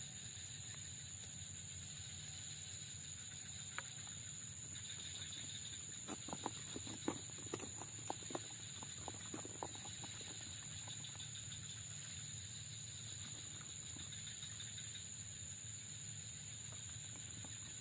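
Steady high insect drone over faint outdoor hiss, with a run of small sharp clicks and ticks about six to nine seconds in as the hook and line are handled.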